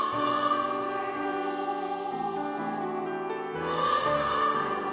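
Mixed church choir singing a hymn in Korean in held chords, with a new, louder phrase starting about three and a half seconds in.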